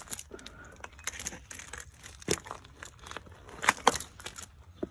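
Scattered clicks, knocks and scraping as a fishing magnet with a rusty railroad spike and a bolt stuck to it is handled, the sharpest knocks a little after two seconds and near four seconds.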